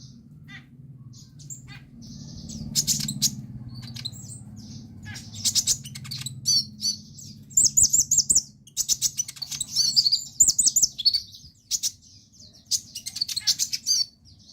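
Konin (kolibri ninja, a sunbird) singing in quick high chirps and fast rattling trills, the rapid 'trotolan' song style, in bursts with short breaks, over a faint low hum.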